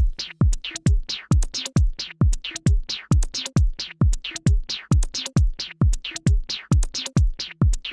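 Electronic dance music: a drum-machine kick with a dropping pitch about twice a second, with short falling synth sweeps between the beats.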